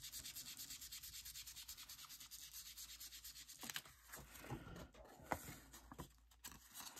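Ink blending tool scrubbed over paper in quick, even strokes, several a second, inking the paper's edges and back. The scrubbing stops about three and a half seconds in, followed by soft paper rustles and taps.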